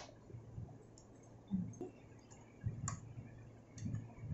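Small scattered clicks and soft knocks as a metal bobbin case is handled and fitted back into a Usha Janome Marvela sewing machine's bobbin compartment, after the thread jammed in the hook has been cleared. The sharpest click comes about three seconds in.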